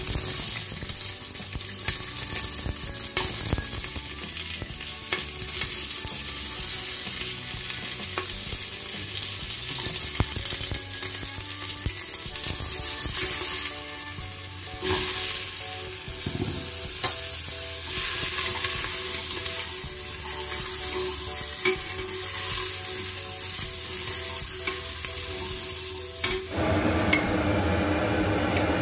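Onion, potato and carrot pieces sizzling and crackling as they fry in a stainless steel pot, stirred now and then. About two seconds before the end the sizzle stops and a kitchen extractor hood's fan is left running with a steady rushing whir.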